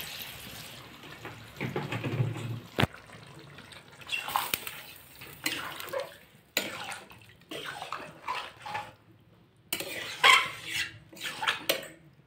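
Water pouring from a plastic bottle into a steel kadai of simmering curry, then a metal ladle stirring and scraping against the pan, with a few sharp clanks.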